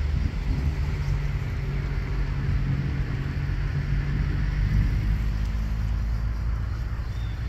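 Twin-turboprop airliner on approach: a steady low drone of its propellers and engines, with a low hum that steps up in pitch shortly after the start.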